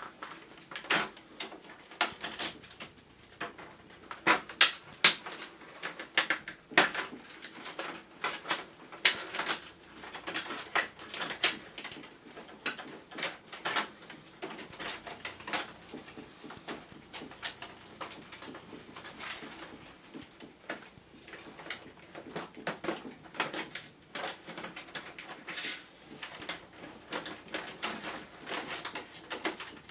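Irregular clicks, snaps and knocks of hard plastic parts being unclipped and handled while a wall-mounted air conditioner is taken apart, busiest in the first half.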